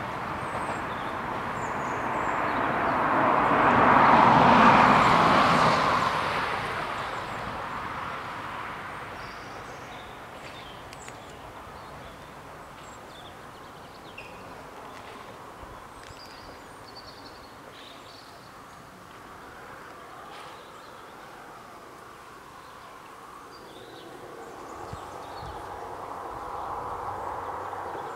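Regional passenger train rumbling past on the rails, its noise swelling about four seconds in and then fading away. After that, quiet outdoor ambience with faint bird and insect chirps, and a low rumble rising again near the end.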